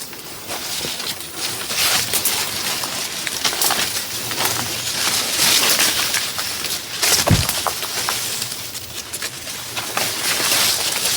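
Outdoor wind and rustling noise, with many short crackles, and one low thump a little past the middle.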